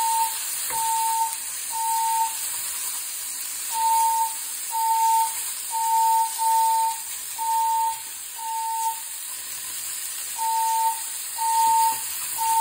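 Fire alarm sounding a high beeping tone, about one beep a second in groups of three with short pauses between the groups: the temporal-three evacuation signal played between the recorded evacuation announcements. Under it, sausage sizzles steadily in a frying pan.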